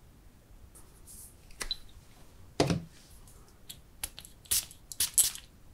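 Hands handling glass perfume bottles: a click, then a solid knock about halfway through as a bottle is set down, followed near the end by a quick run of clicks and short hissy handling sounds.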